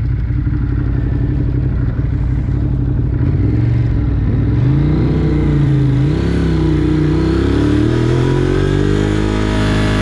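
A vehicle engine running under a steady low road rumble, its pitch rising and falling several times as it speeds up and eases off, then climbing again near the end.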